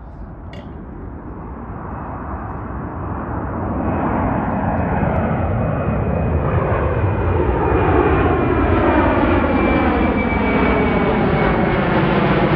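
Airbus A330 airliner climbing out after takeoff, its jet engine noise growing steadily louder as it nears overhead. A high whine slowly falls in pitch.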